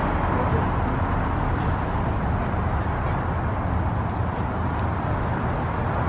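Steady road-traffic noise: a continuous low rumble with a lighter hiss above it.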